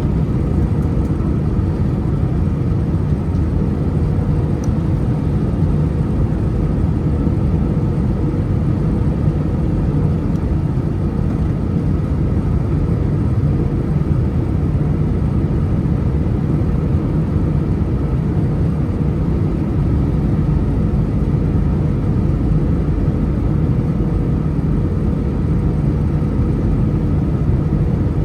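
Steady drone inside the cabin of a Delta Airbus A319-114 in flight: the hum of its CFM56 engines and rushing air, with faint steady tones and no change in thrust.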